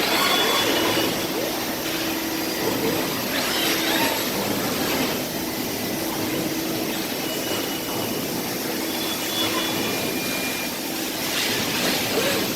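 Factory floor noise from industrial robots and machinery at work: a steady mechanical hum and hiss, with short whines that rise and fall.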